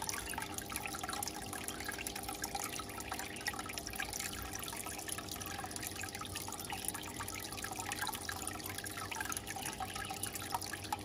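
Water trickling and bubbling steadily in a fish tank, a dense patter of small drips and splashes, over a faint steady hum.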